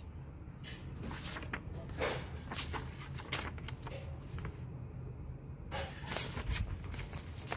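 Paper leaflets rustling and flapping as they are unfolded and handled, with scattered light rustles and clicks over a low steady hum.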